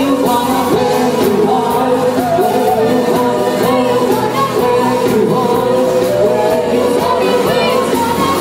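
A pop song playing, with singing over the music.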